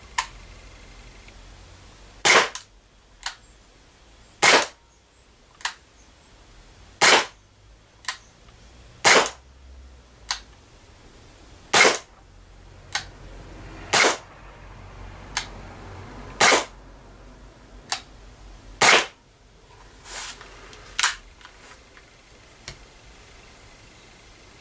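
Sig Sauer P226 CO2 blowback air pistol firing .177 pellets: about eight sharp shots, one every two to two and a half seconds, each with the slide snapping back. Fainter clicks fall between the shots, and a couple of weaker cracks come near the end.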